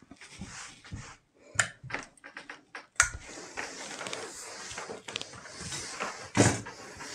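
Hands smooth fusing paper and cloth flat with light rustles and taps. About three seconds in there is a click, then a steady hiss as a hose-fed steam iron is pressed and slid over the fusing paper to bond it to the collar fabric. There is a single thump shortly before the end.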